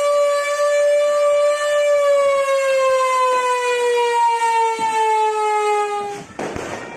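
Manual mechanical siren wailing with one steady tone, then slowly falling in pitch as it winds down, and stopping about six seconds in.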